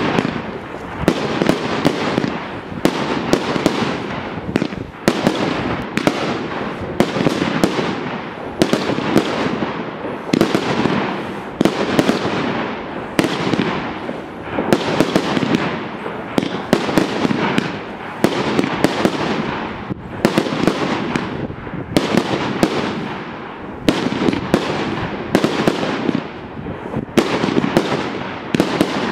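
Royal Fireworks Sky Palms 25-shot fireworks cake firing shot after shot. Sharp bangs come about once a second in an unbroken run, with a dense rush of noise between them.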